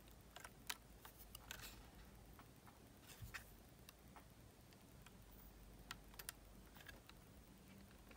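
Near silence with a few faint, scattered clicks of metal tweezers against the small parts of a cassette Walkman mechanism as its new drive belt is straightened around the flywheels.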